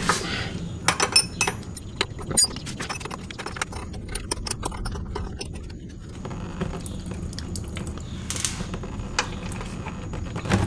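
A flare-nut wrench working a 12 mm clutch hydraulic line fitting loose: a run of short, irregular metallic clicks and clinks of the wrench on the nut, over a steady low hum.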